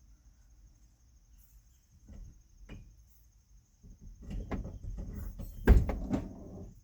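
A van door being worked: a couple of latch clicks, then rattling and knocking, with one loud thud near the end.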